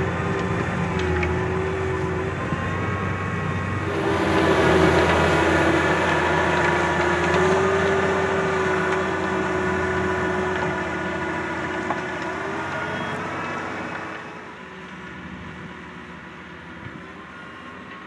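John Deere 6210R's six-cylinder diesel working under load as it pulls a five-furrow reversible plough through the soil, a steady engine note with a whining tone over it. About two thirds of the way through, the sound drops suddenly to a quieter, more distant engine note.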